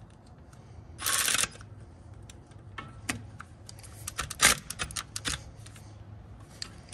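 A small cordless power tool runs in a short burst about a second in, driving in the wheel speed sensor's mounting bolt. Sharp clicks and knocks of the tool and metal parts follow, the loudest about four and a half seconds in.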